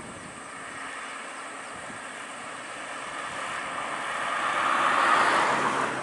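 Road vehicle passing close by: a rushing noise that swells to its loudest about five seconds in, then eases off.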